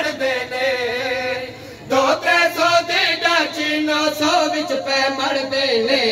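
A group of men chanting a verse together in unison, with long held, wavering notes and a brief break about two seconds in.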